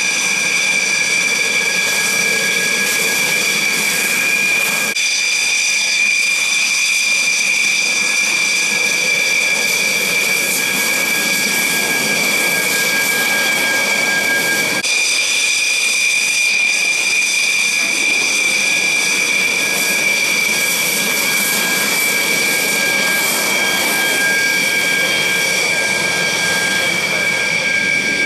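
Dassault Rafale's twin Snecma M88 turbofans running at low taxi power: a loud, steady high-pitched whine. The sound jumps abruptly twice, about five and fifteen seconds in.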